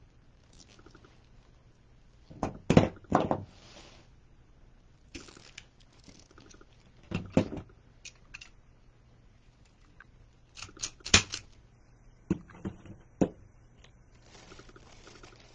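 Hands handling and fluffing plastic deco mesh and ribbon on a wreath: short bunches of crinkling and sharp clicks, the loudest about three seconds in and again about eleven seconds in, with quiet stretches between.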